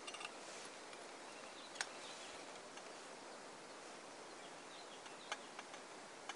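Faint steady outdoor background hiss, with a few light clicks from a Trangia alcohol stove being handled. The sharpest click comes about two seconds in.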